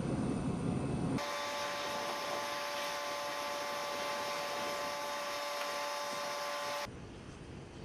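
A steady mechanical whine of several held tones over a hiss, cutting in abruptly about a second in and cutting off abruptly near the end, where a low rumble returns.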